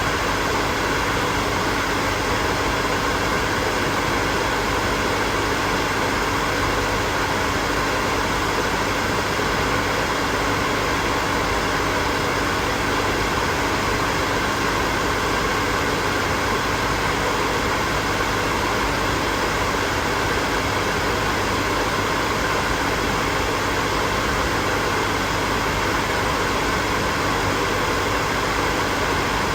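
Hair dryer running steadily: an even blowing noise with a faint steady hum under it.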